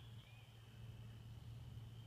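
Near silence: faint outdoor ambience with a steady faint high tone and a low hum. A bird gives a short chirp right at the start.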